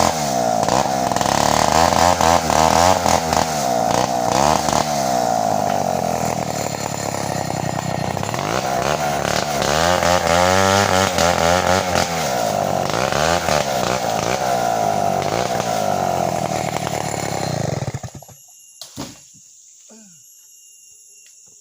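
Homemade chainsaw running and cutting kapur wood, its engine speed dipping and rising again and again. It cuts off abruptly about eighteen seconds in, leaving crickets chirping.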